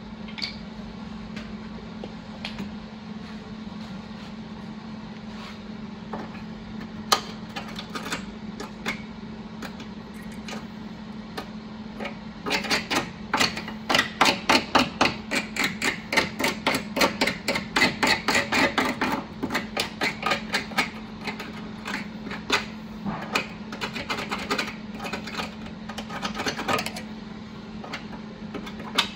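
Hammer tapping on sheet metal: a few scattered blows, then a long run of quick, sharp blows at about three a second from about twelve seconds in, stopping shortly before the end, over a steady low hum.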